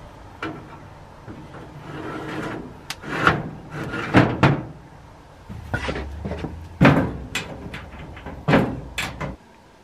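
Wire rack scraping and clanking as it slides into a vertical metal smoker cabinet, then the smoker's metal door banging shut and its latch clicking. A string of sharp knocks with scraping between them.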